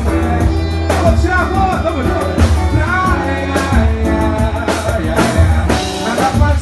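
A band playing a song: a sung vocal line over drum kit and a strong bass.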